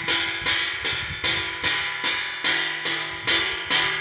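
Wind-spun pinwheel bird and animal scarer: a striker on the propeller's turning shaft hits a metal plate about two and a half times a second, each clang ringing briefly before the next.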